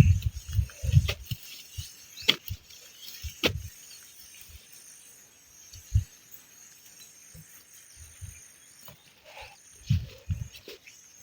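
Irregular dull thuds and a few sharp knocks of a hoe digging into soil for sweet potatoes, with a faint steady high hiss of insects.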